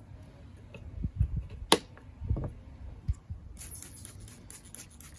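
A few low knocks and one sharp click as the diamond sharpening stone is handled, then, about three and a half seconds in, a quick run of hissing squirts from a hand spray bottle wetting the stone as lubricant.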